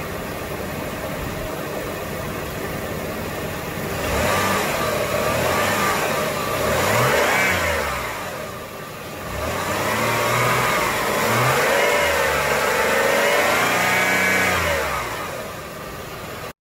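Jeep Liberty engine idling, then revved in two spells, about four seconds in and again around ten seconds, its pitch rising and falling before settling back near the end. The throttle is being blipped to build cooling-system pressure and test a JB Water Weld patch on a cracked plastic radiator tank.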